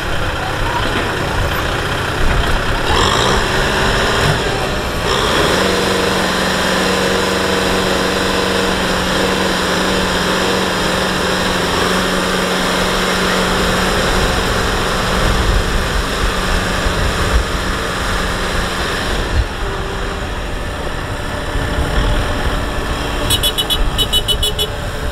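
Diesel engines of a Kubota tractor and a Kubota combine harvester running steadily, with a steady droning note from about five seconds in until near twenty seconds.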